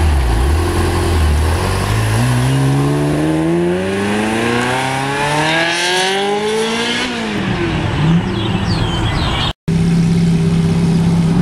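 Ferrari F355 Spider's V8 with a loud aftermarket exhaust idles, then revs climb steadily for about five seconds as it accelerates away before falling off. After a brief dropout, a Ferrari F430's V8 idles steadily.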